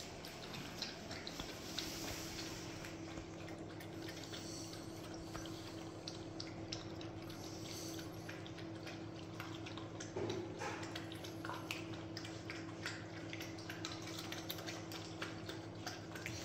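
Bucovina Shepherd puppies eating from a plastic bowl: chewing and smacking with many small clicks, over a steady low hum.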